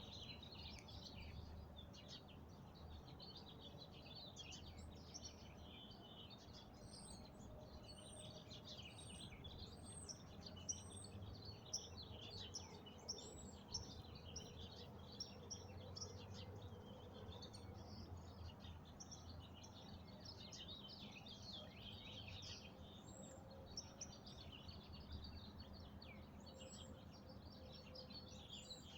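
Many small birds chirping and singing together in a faint dawn chorus, with a run of five short high notes about a second apart partway through, over a low steady background hum.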